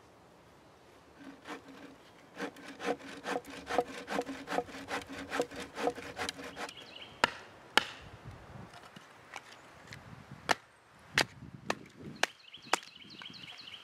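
A hand saw cutting through a dry branch in a run of even strokes, about two and a half a second, which stops about two-thirds of the way in. Then a handful of sharp, irregularly spaced wooden knocks as the sawn pieces are split into kindling.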